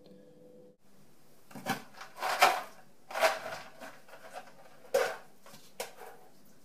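Kitchen clatter from handling dishes and utensils at a counter: irregular knocks, clinks and scrapes, loudest about two and a half seconds in and again at five seconds. A faint steady hum stops just under a second in.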